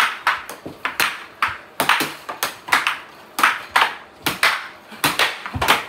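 Air hockey puck and plastic mallets clacking against each other and the table's rails in a fast rally, a rapid, irregular run of sharp hits about three or four a second.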